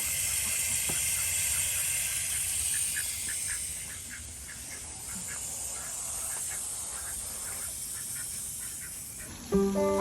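Ducks giving a run of short, quiet calls over a steady hiss. Music starts near the end.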